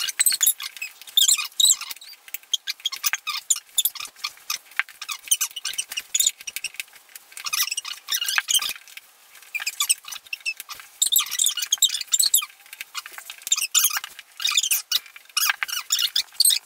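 Room sound played back fast-forwarded, turned into rapid high-pitched squeaky chatter that comes in quick bursts with short gaps and has no low sound at all.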